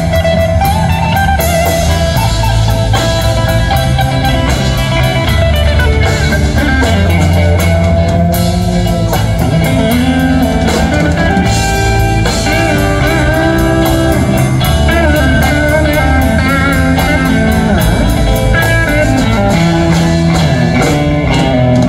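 Live rock band playing an instrumental: an electric guitar carries a lead melody with wavering held notes over electric bass and a drum kit.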